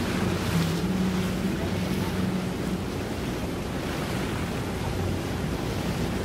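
A boat engine running at idle, a steady low hum under wind and water sounds. The hum eases a little after about two and a half seconds.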